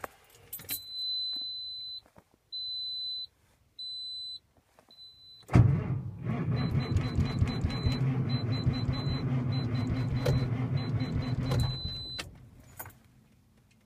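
A truck's warning chime sounds, first as one long beep and then as short beeps. The starter then cranks the cold engine steadily for about six seconds without it catching, while the chime keeps beeping in quick pulses. It is a failed cold start.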